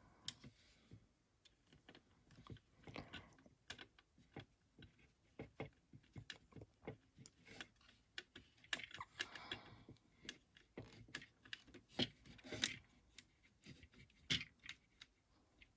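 Faint, irregular clicks and taps of small plastic toy parts being handled while a screw is fitted into an action figure's hand upgrade, with a brief rub about nine seconds in and a few sharper clicks near the end.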